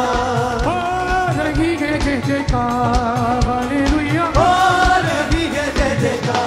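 Upbeat Hindi Christian worship song: band with keyboard and a steady drum beat under a melody of long held notes that slide up into each phrase.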